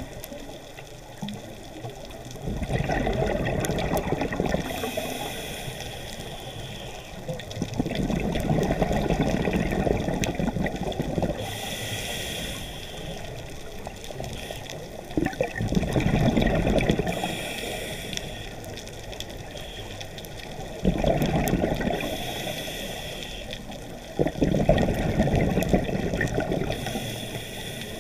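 Scuba diver's regulator breathing, recorded underwater: about five loud rushes of exhaled bubbles, each two to three seconds long, alternating with short hissing inhalations through the regulator.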